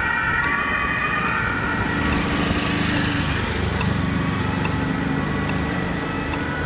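Ambulance two-tone siren alternating between two pitches, fading away within the first second as the vehicles drive off. Then the steady noise of road traffic: engines and tyres of passing vehicles.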